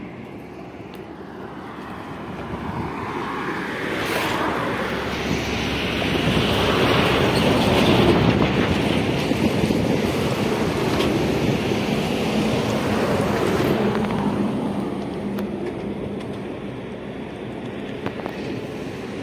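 Traffic passing over a road bridge: a steady rumble of tyres and engine that swells to its loudest about eight seconds in, then slowly fades.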